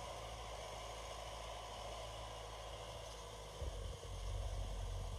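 Truck running as it drives along a flooded, muddy road: a steady low engine and road rumble that grows louder and deeper about three and a half seconds in.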